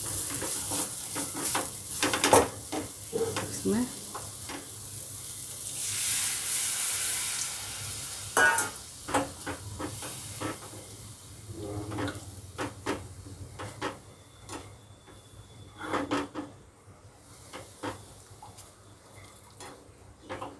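Water added to hot fried masala in a frying pan sizzling, with a slotted spatula scraping and clicking against the pan as the gravy is stirred. The hiss swells about six seconds in, then dies down, leaving mostly the stirring.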